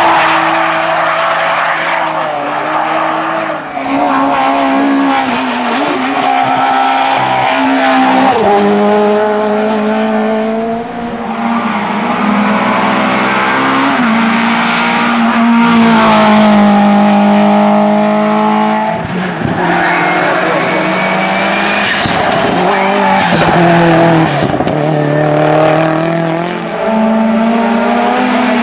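Hill-climb race car engines at high revs, the pitch climbing and falling back again and again as the cars accelerate, shift and brake, with brief dips between runs.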